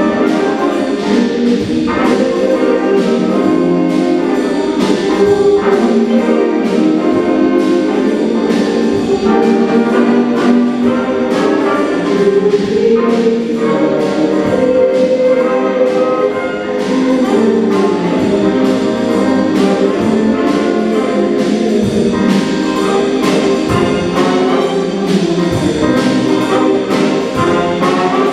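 School jazz band playing, with trumpets and trombones over a steady beat.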